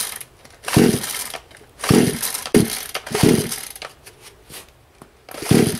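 Recoil starter of a new Anbull 52cc two-stroke chainsaw being pulled again and again, a rasping whirr with each yank about once a second, the cold engine not yet firing. The choke is out for its very first start, and the pulls are still drawing fuel up through the lines to the carburetor.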